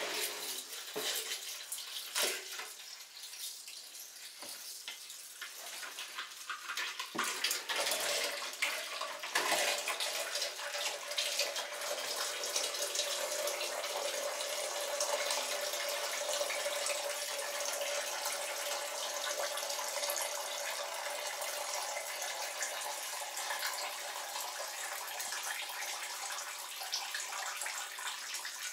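Used engine oil draining from the oil pan of a Seat 1.6 MPI engine, a thin stream pouring steadily into a container below. A few knocks sound in the first several seconds, and from about eight seconds in the pour settles into a steady hiss with a faint held tone.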